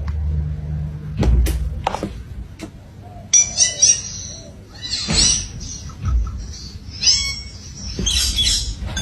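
Parrot giving short, high chirping calls in several quick bursts, after a few sharp clicks.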